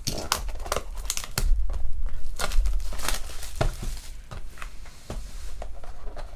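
Crinkling and rustling of trading-card packs and cards being handled, with a quick run of sharp crackly ticks.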